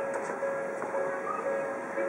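Railway level crossing warning bell ringing, a single tone repeating about twice a second: the signal that a train is approaching and the crossing is closed.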